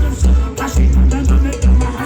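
Music played loud through a car's installed sound system, with deep bass beats about twice a second.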